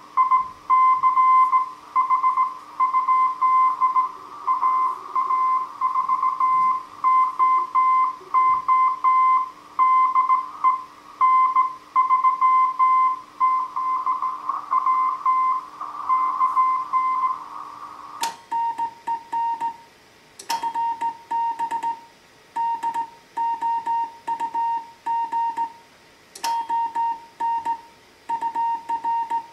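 Slow Morse code (CW) beeping from a Heathkit HW-101 transceiver: a single steady note keyed on and off in dots and dashes over a light hiss. About 18 seconds in, a slightly lower, cleaner note takes over, with a few sharp clicks.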